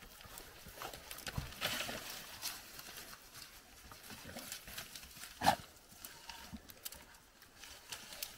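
Footsteps and rustling of brush and sticks as hound pups and a person move through dense forest undergrowth, in irregular steps and crackles. One sharp, louder sound stands out about five and a half seconds in.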